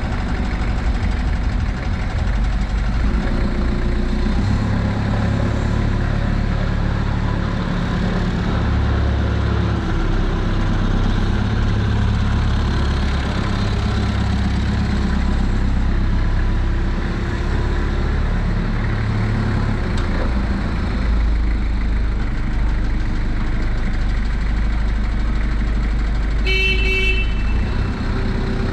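Octane FD25 forklift's diesel engine running as it drives and works, its engine speed rising and falling every few seconds. Near the end, a short horn beep.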